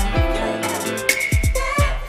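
Background music: an electronic, hip-hop-style track with deep falling bass hits and a steady beat.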